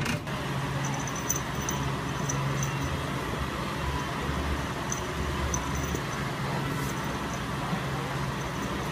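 Steady low hum and hiss, with a few faint, soft high ticks scattered through it.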